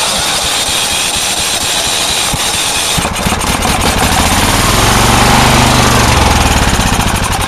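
Tecumseh small engine on a lawn-mower go-kart being cranked by its electric starter, then catching about three seconds in and running with a rhythmic firing that grows louder. Near the end it starts to fade, the fuel valve still being shut off.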